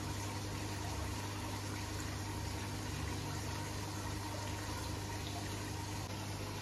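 Aquarium filtration running steadily: air bubbles and water from a sponge filter and tank filter, bubbling and trickling, over a constant low hum.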